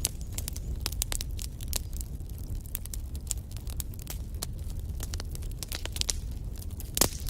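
Wood fire crackling in a fireplace: a quick, irregular run of sharp pops and snaps over the low rumble of the flames, with one louder pop near the end.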